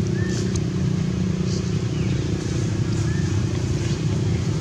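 Steady low motor drone, like an engine running, even throughout. Two faint, short high chirps sound over it, one just after the start and one about three seconds in.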